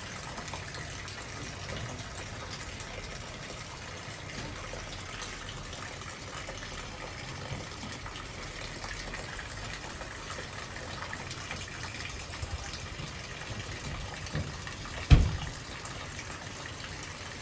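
Steady rain with water gushing from an overflowing gutter. One sharp, low thump about fifteen seconds in.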